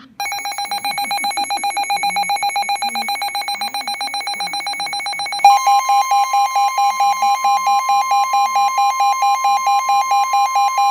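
Weather alert radio's alarm beeping rapidly, about six beeps a second. About halfway through, the steady 1050 Hz NOAA Weather Radio warning alarm tone comes on over it and holds. This is the alert that a new warning is about to be broadcast.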